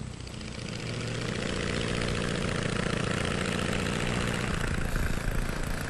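Early propeller aircraft's piston engine running, growing louder over the first two seconds and then holding steady.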